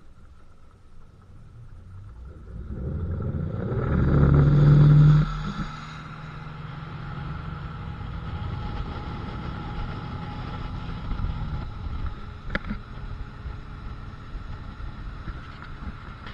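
Motorboat engine running, building up over the first few seconds to its loudest around four to five seconds in, then dropping back to a steady drone.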